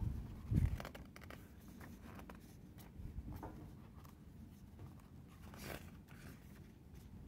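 Pages of a thick photobook being turned and pressed flat by hand: soft, scattered paper rustles and swishes, with a dull low thump about half a second in.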